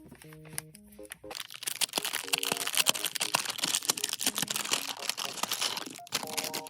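Packaging being handled and unwrapped, a dense crinkling crackle that starts about a second and a half in and stops near the end, over soft background music with gentle sustained notes.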